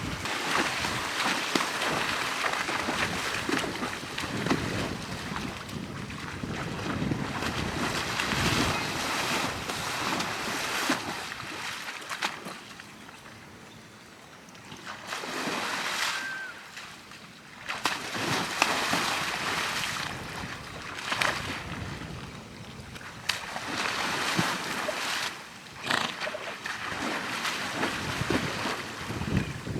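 Gusting wind buffeting the microphone, rising and falling in waves with a quieter lull about halfway through.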